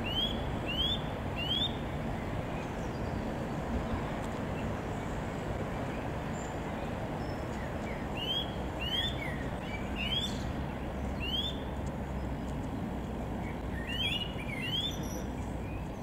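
Eurasian nuthatch calling: short, clear whistled notes that each rise sharply in pitch, three near the start, about five more in the middle and a few more near the end. A steady low background noise runs underneath.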